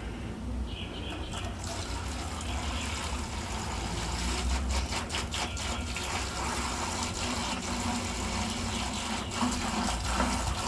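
Apple cider vinegar being poured from a gallon jug into a 5-gallon bucket of rusty horseshoes and railroad spikes, a steady splashing pour that starts about two seconds in.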